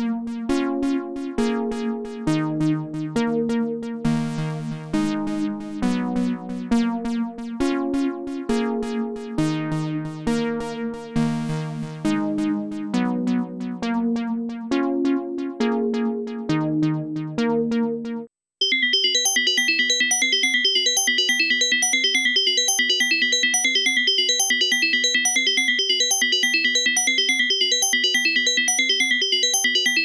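Dave Smith Evolver synthesizer playing a sequenced chord progression of rapidly repeated notes, the chord changing about once a second. About 18 seconds in it cuts out briefly and a different patch starts: a steady, fast-pulsing chord with a bright high tone.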